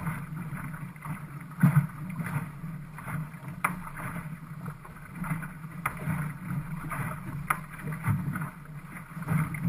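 Water rushing and splashing along the hull of a GP14 sailing dinghy under way, with now and then a sharp slap against the hull.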